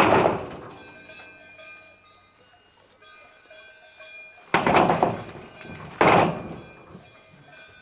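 Three heavy thunks of flat stones set down on a corrugated metal roofing sheet, each ringing briefly in the metal: one at the very start, then two more a second and a half apart past the middle.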